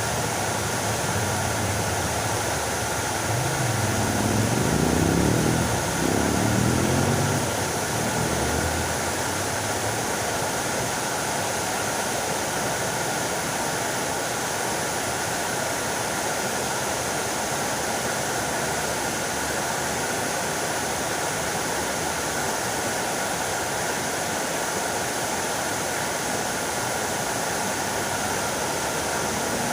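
Fountain water splashing and falling in a steady rush. Between about three and nine seconds in, a low droning hum rises and falls in pitch over the water, then fades.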